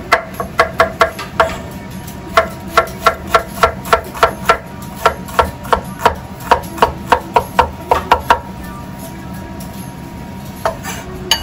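Chef's knife chopping red onion on a wooden cutting board: quick, even knocks of the blade on the board, about three a second, with a short pause about a second and a half in. The chopping stops about eight seconds in, and one or two single knocks follow near the end.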